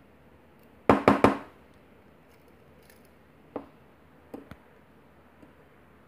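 Sharp metallic clicks from handling a disassembled lock cylinder and its pins with metal tweezers: three loud clicks in quick succession about a second in, then a few fainter ticks past the middle.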